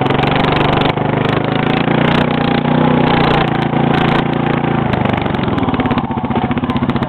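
A small engine running steadily, then settling into a pulsing idle about five seconds in.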